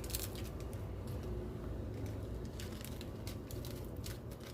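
Soft handling sounds of instant coffee powder being mixed into hot milk in a ceramic mug: faint rustling with a few light taps, over a low steady hum.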